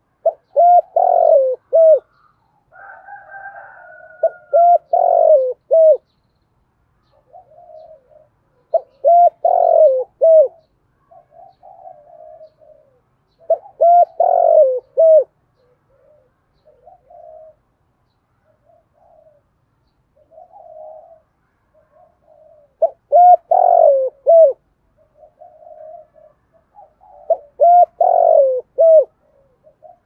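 Spotted dove cooing: six loud phrases of several short notes each, a few seconds apart, with fainter calls in between.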